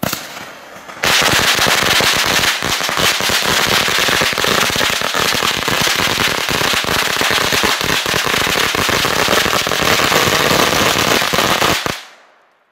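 A long string of firecrackers going off: about a second of the fuse burning, then rapid, continuous bangs for about eleven seconds, stopping abruptly near the end.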